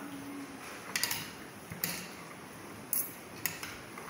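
A spoon clicking and scraping against a plastic bowl as sliced banana blossom is tossed and mixed, with several sharp light knocks scattered through.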